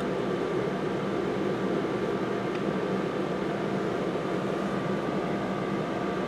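Steady hum and whir of a small electric motor, even throughout, with a thin high tone running under it.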